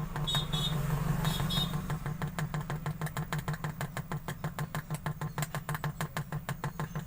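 A CRT TV speaker hums as a screwdriver tip touches the input pin of the audio amplifier IC. The hum stutters in quick even pulses, about seven a second. A hum like this shows the audio IC and speaker path are working.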